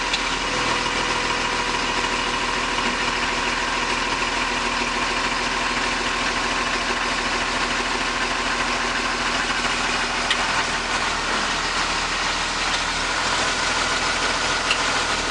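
6.7-litre Cummins diesel engine of a 2010 Blue Bird Vision school bus idling steadily and smoothly, warming up after a cold start in −4 degree weather without being plugged in.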